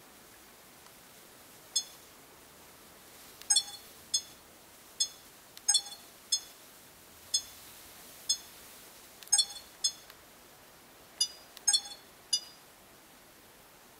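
Sony HDR-AS30V action camera beeping as its PREV and NEXT buttons are pressed to step through the menu: about a dozen short, high electronic beeps at irregular intervals, some in quick pairs.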